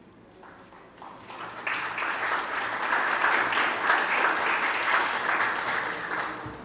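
Audience applauding, building up about a second in and dying down near the end.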